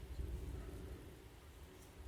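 Rain falling steadily under a low rumble that swells near the start and fades away through the second half.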